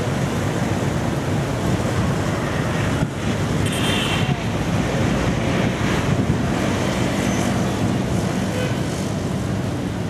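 Strong wind buffeting the microphone in a loud, steady rumble, with street traffic beneath it.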